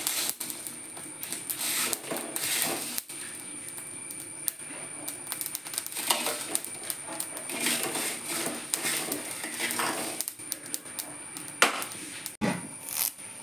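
Metal spoon stirring dry red chillies and coriander seeds as they roast in a metal pan. The spoon scrapes the pan and the seeds and chillies rattle against the metal in irregular strokes.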